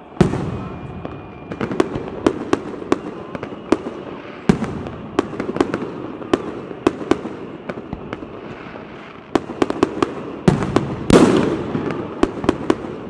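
Fireworks display: aerial shells bursting overhead. A loud bang at the very start, then a run of sharp cracks and bangs a fraction of a second to a second apart, over a steady rumble, thickening into the loudest cluster of bangs near the end.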